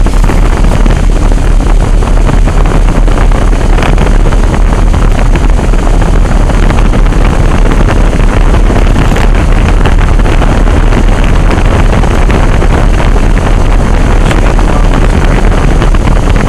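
Military vehicle's engine idling steadily, heard from inside the cab as a loud, unbroken rumble that overloads the recording.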